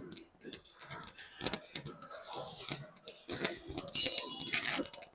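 Gym sounds during a heavy set of barbell overhead press: scattered metallic clicks and clinks from the loaded bar, with short forceful breaths about once a second as the reps go up.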